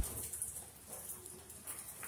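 A sharp click right at the start where the recording cuts back in, then faint background noise with a steady high hiss and a few soft scattered sounds.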